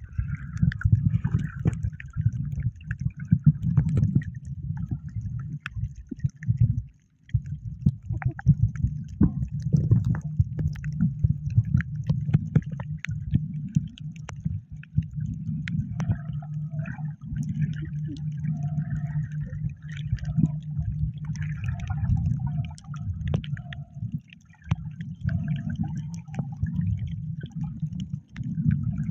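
Muffled water sloshing and gurgling with a steady low rumble and scattered sharp clicks, as picked up by a waterproof camera in the sea.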